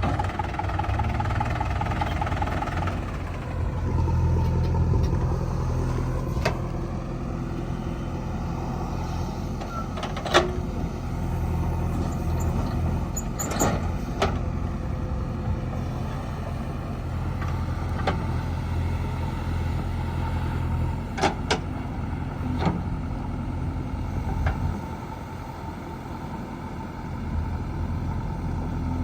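Diesel engine of a JCB 3DX backhoe loader running and revving up and down as it digs and loads mud, with sharp metallic clanks now and then, about seven in all.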